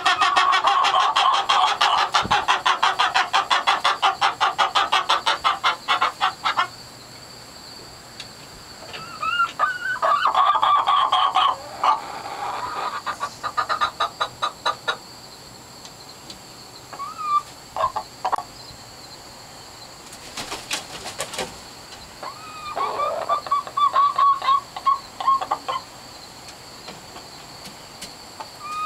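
Hens squawking: a loud, rapid run of repeated cackling calls for the first six seconds or so, then scattered calls with pauses between. This is the cackling hens make around egg-laying time.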